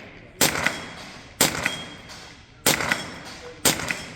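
Four rifle shots about a second apart, each followed a split second later by the ring of a steel falling-plate target being hit.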